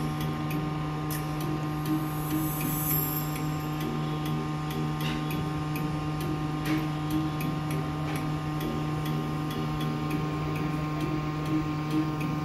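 Hot air rework station blowing steadily with a constant hum, heating a shorted capacitor on a laptop motherboard's 19 V rail to desolder it. A few faint clicks.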